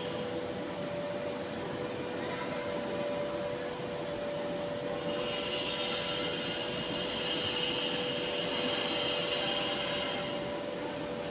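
A small electric motor running steadily with a constant hum, joined by a louder high hiss from about five seconds in that drops away near the end.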